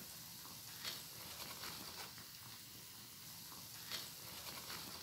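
Faint sizzling and crackling of hot oil as rice vadai deep-fry in a pot, with two brief sharper ticks, about a second in and again near four seconds in.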